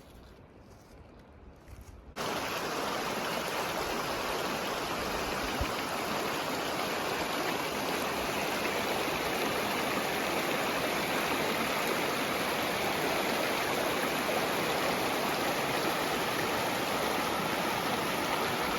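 Creek water rushing steadily over rocks. It cuts in suddenly about two seconds in, after a quieter start.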